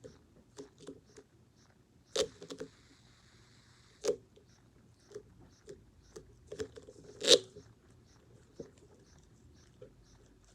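Hands working a fidget toy: scattered small clicks and crackles, with three louder sharp snaps about two, four and seven seconds in.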